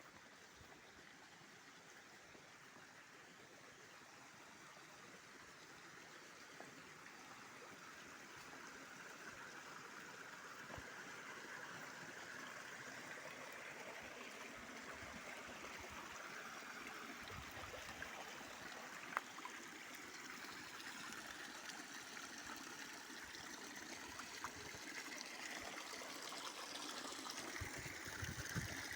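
Natural spring water flowing and trickling, a steady rushing splash that grows gradually louder.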